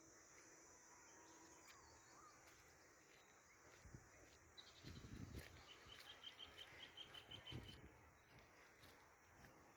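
Near silence: faint outdoor park ambience with a steady high hiss, and from about six seconds in a quick run of about a dozen high-pitched chirps lasting two seconds, with a few soft low thumps.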